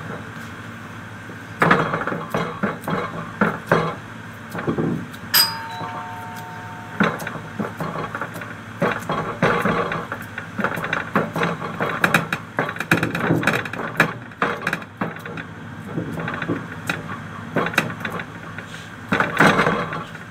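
Irregular kitchen clatter and handling knocks as fried potato strips are taken from a plate and laid over a tray of minced meat, over a steady low hum. About five seconds in, a short two-note electronic chime falls in pitch.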